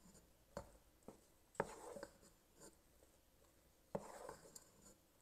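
Faint, irregular taps and scrapes of a wooden spoon stirring sticky, half-melted marshmallows in a metal pot. The sharpest knocks come about a second and a half in and again about four seconds in.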